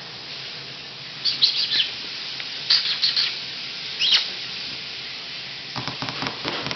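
Three-week-old Pomeranian puppy giving tiny high-pitched yips in three short clusters, over a steady background hiss from a running shower.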